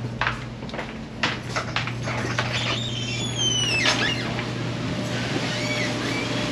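Motorized shooting-range target carrier running the target downrange: a steady motor hum that stops near the end, a few sharp clicks in the first two seconds, and a high squeal from the carrier about three seconds in.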